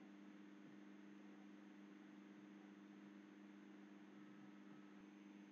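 Near silence: a faint steady electrical hum with light background hiss.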